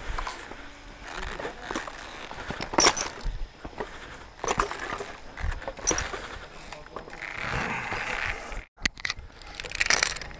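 Scattered knocks and rustling as feet step across the wooden rungs of a rope bridge, its ropes and the climber's harness shifting. Near the end, quick metallic clicks of a zip-line pulley and carabiners handled on a steel cable.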